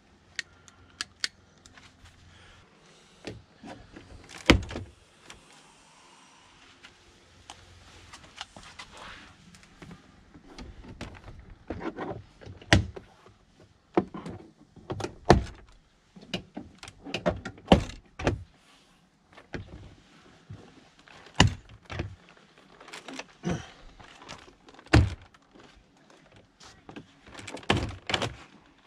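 Plastic retaining clips of a Mercedes W205 C-class door trim panel popping loose as the panel is pried off with a plastic trim tool: a long run of sharp, irregular clicks and knocks.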